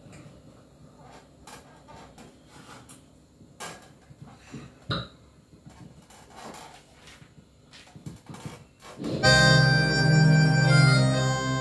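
Faint scattered clicks and knocks of handling, then about nine seconds in an instrumental backing track starts suddenly and loudly, with sustained chords.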